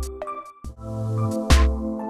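Electronic background music with a deep bass, held synth chords and regular drum hits, dipping briefly about half a second in before a rising swell.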